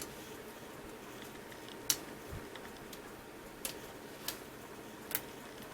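Small, sharp clicks and taps, about five spread unevenly over a few seconds, from a wifi antenna cable's snap-on connector being worked onto the laptop wireless card's socket by hand.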